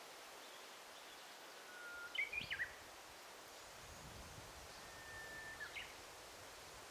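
A songbird sings two phrases over a faint, steady forest hiss. Each phrase is a long, steady whistled note that breaks into a quick flourish of higher notes; the second whistle is pitched higher than the first.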